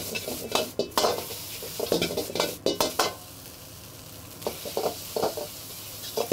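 Metal ladle knocking and scraping against a wok as fried rice with egg is stir-fried over a gas flame, over a steady sizzle. The knocks come in irregular clusters, with a pause of about a second and a half in the middle where only the sizzle is heard.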